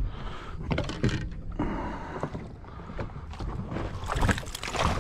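Water sloshing and splashing at the side of a boat, with the loudest burst of splashing about four seconds in as a hooked bass thrashes at the surface.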